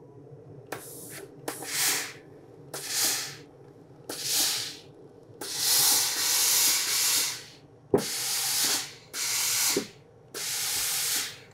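Steam iron giving repeated bursts of steam hiss as it presses a fabric seam flat, about eight bursts with one long one of about two seconds in the middle, over a faint steady low hum. A sharp knock sounds about eight seconds in.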